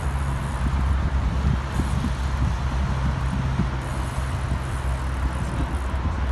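A steady low engine hum with a continuous wash of road-traffic noise.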